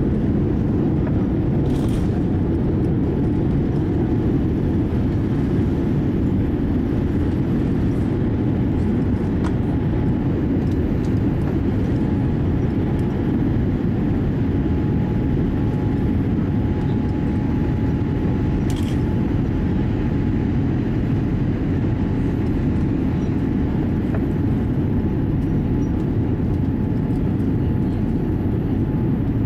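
Cabin noise of a Boeing 787-8 at takeoff: its GE GEnx-1B engines at takeoff thrust and the rush of air, a steady low rumble heard from a window seat over the wing, with a faint steady whine. The jet lifts off the runway and climbs. Two faint clicks come about 2 and 19 seconds in.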